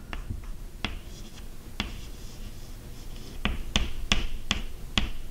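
Chalk tapping and scratching on a blackboard as Arabic letters are written: a run of sharp, uneven taps, most of them packed close together in the second half, with faint scraping between them.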